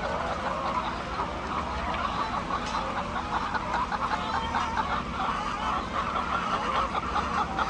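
A large flock of hens clucking and calling all at once, a dense, continuous chatter of overlapping calls, over a steady low hum.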